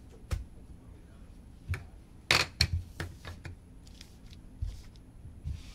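Cards and small card stands being handled and cleared off a table: a scattering of short clicks and taps, the loudest pair about two and a half seconds in.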